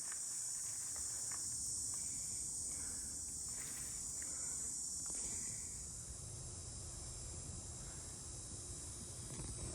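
A steady, high-pitched chorus of insects, easing off a little about six seconds in, over a low rumble.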